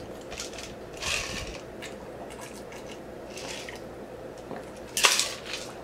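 A man drinking ice water from a glass, with faint gulps about a second in and again midway, then a short loud burst of breath near the end.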